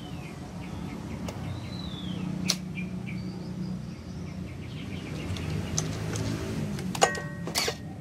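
A top-loading washing machine's QA22 drain motor hums steadily while powered, running normally. A bird chirps twice in the first two seconds, and a few sharp clicks come near the end.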